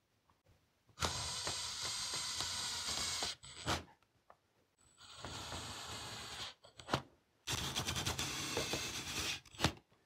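Cordless impact driver driving screws into an ABS pipe fitting, in three runs of a couple of seconds each with its rapid hammering rattle, separated by short knocks as the driver and fitting are handled.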